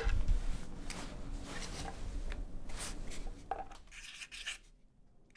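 Cloth rustling and handling bumps, then short scratchy strokes of a felt-tip marker writing on corrugated cardboard, about four seconds in.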